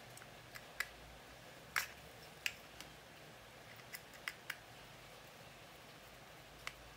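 Light, irregular clicks and taps of a screwdriver and a small screw on a fishing reel's body as the screws are fitted and driven back in, about ten in all.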